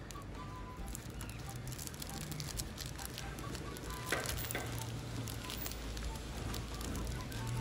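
Clear plastic lollipop bag crinkling and crackling in the fingers as it is handled and a ribbon is tied around it, a run of small irregular crackles.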